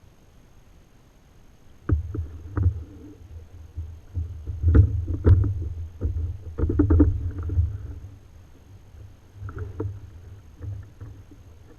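Irregular knocks and hollow clunks on a plastic sit-on-top kayak hull, an Ocean Kayak Trident 13, as a paddle or gear bumps against it. The knocks come in clusters, starting about two seconds in, the loudest around the middle.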